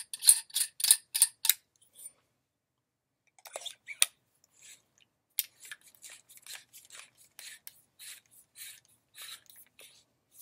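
Threaded metal lightsaber hilt sections being twisted apart by hand: a quick run of sharp scraping clicks from the threads, then a slower, softer series of scrapes after a pause.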